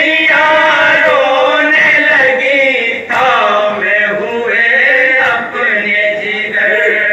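Men's voices chanting a noha, a Shia mourning lament, in a drawn-out sung melody, with a short pause between phrases about three seconds in.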